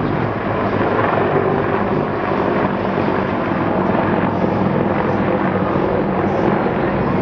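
A C-130 tanker's turboprops and helicopter rotors flying in formation, a steady loud drone with a low hum underneath.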